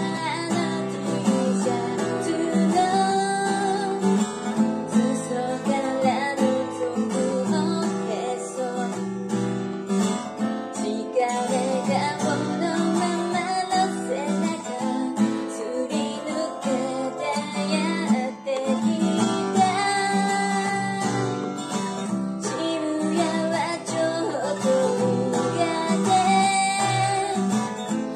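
Acoustic guitar strummed in a steady rhythm while a woman sings a pop song along with it.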